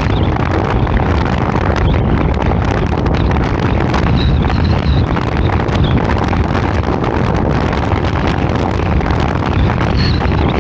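Wind buffeting the microphone of a camera mounted on a moving car's roof, with steady low road and traffic rumble underneath.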